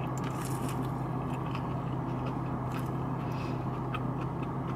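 Close-up biting and chewing of breaded fried chicken tenders, with short crunchy clicks scattered throughout. A steady low hum runs underneath.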